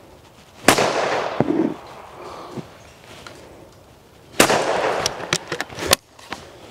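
Two shots from a 20-bore Yildiz Kompakt over-and-under shotgun firing 24-gram clay cartridges, nearly four seconds apart, each ringing on briefly after the report. A quick run of sharp clicks follows as the gun is broken open after the second shot.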